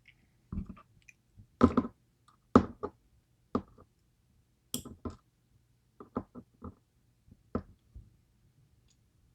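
Small metal clicks and taps of lock parts and pick tools being handled as key pins are worked out of a DOM IX Twinstar lock plug: about a dozen irregular sharp ticks, the loudest in the first three seconds.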